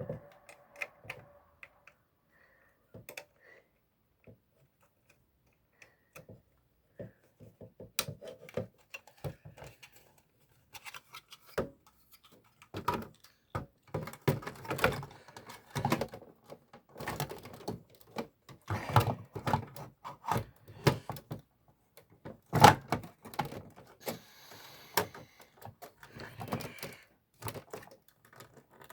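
Irregular clicking, tapping and clattering of an original Xbox's parts being handled as its IDE cable and hard drive are fitted. Sparse clicks at first, a quick run of ticks about seven seconds in, then dense clatter from about eleven seconds on, with one sharp knock near the end.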